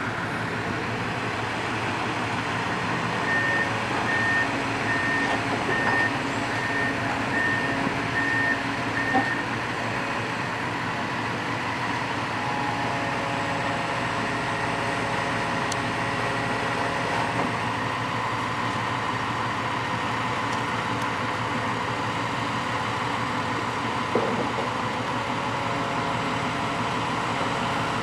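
Komatsu PC160 hydraulic excavator's diesel engine running steadily under load as the machine tracks and levers itself up ramps onto a lowbed trailer. A few seconds in, a travel alarm beeps about nine times at a steady pace, and two sharp metal clanks stand out, one about nine seconds in and one near the end.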